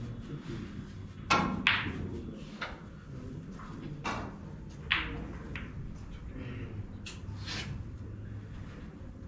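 A few sharp knocks and clicks over a steady room background, the loudest pair about a second and a half in and another near five seconds.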